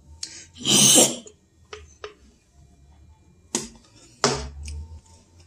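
A short, breathy rush of noise about a second in, then a few light clicks and knocks as things are handled at a table.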